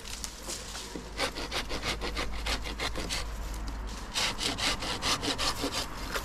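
Handsaw cutting through elm wood in quick, even back-and-forth strokes, with a short break about four seconds in.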